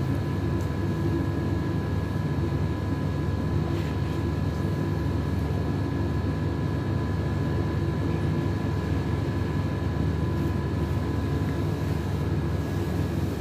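Steady mechanical room hum: a low, even drone with two faint steady whining tones above it, unchanging throughout.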